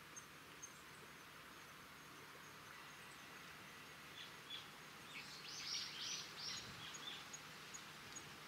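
Faint outdoor ambience with a steady hiss and a thin high ticking a few times a second. About five seconds in, a bird calls in a quick series of short notes for around two seconds, the loudest sound.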